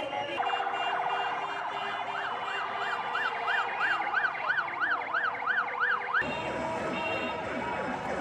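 Red Crescent ambulance siren, first a fast warble and then a slower rising-and-falling yelp at about three sweeps a second. About six seconds in it cuts off abruptly and steady car-horn tones take over.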